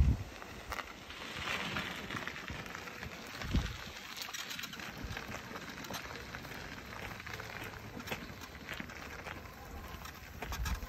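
Light rustling and crackling of long grass brushing past on an overgrown path, with one low thump about three and a half seconds in.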